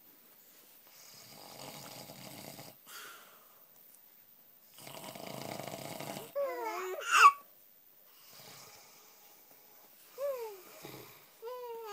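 A man snoring: two long snores a few seconds apart. Just after the second snore an infant gives a rising squeal, the loudest sound, followed by short falling coos near the end.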